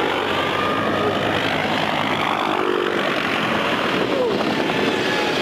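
Steady rushing noise of aircraft engines, without any impact or sharp event.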